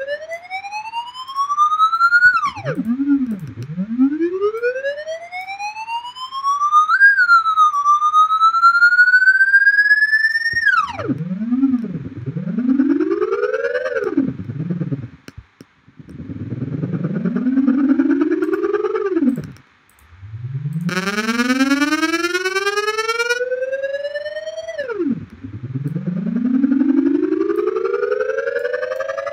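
Synthesized tones from Blender's Audio Nodes, oscillators played note by note from a MIDI controller. About eight notes of varying length each start low, glide steadily up in pitch, then fall away sharply when released. One note about two-thirds through has a harsh, buzzy edge for a couple of seconds. The notes are shaped by the Piano node's runtime and decay, with two oscillators working together for vibrato.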